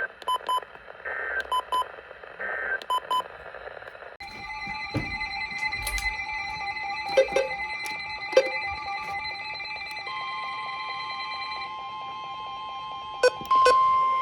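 Electronic emergency-alert tones: short beeps and chirps for the first few seconds, then a steady alert signal of several held tones with a fast pulsing starts about four seconds in. A higher steady tone joins near ten seconds, and a few sharp clicks come near the end.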